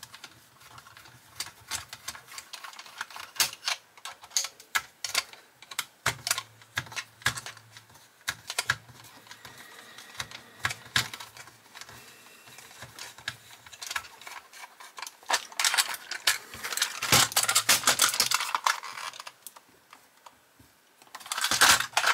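Small, sharp clicks and taps of a 1:18 diecast model car being handled and taken apart: its plastic and metal underbody parts knocking against fingers and the work mat. A denser stretch of rubbing and clicking comes about two-thirds of the way through, and a louder clatter near the end as the model is turned over.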